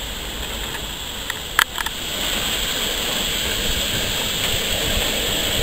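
Steam locomotive hissing steadily close by, with one sharp metallic clank about a second and a half in.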